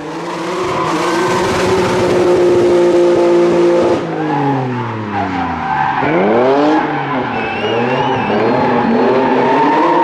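Rally car engine at high revs, then lifting off about four seconds in with the pitch falling, and revving up again in repeated rising runs through the gears from about six seconds. A brief wavering tyre squeal comes around eight seconds in.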